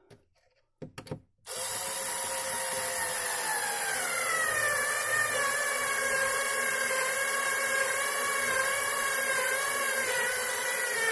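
Cordless screwdriver starting about a second and a half in and running steadily under load against the shelf's underside. Its pitch sags a little a few seconds in as the load comes on.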